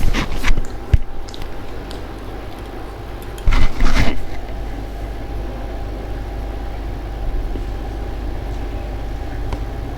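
A person eating a meal: two short bursts of eating noise, one at the start and one about three and a half seconds in, with a single sharp click about a second in, over a steady background hum.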